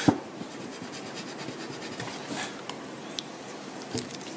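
Faint scratching and rubbing on drawing paper during pencil shading, with a sharp knock just after the start and a smaller one about four seconds in.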